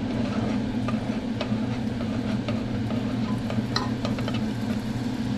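A utensil stirring Alfredo sauce in a pot on the stove, with faint scrapes and light ticks against the pot, a few clearer ticks about four seconds in. A steady low hum runs underneath.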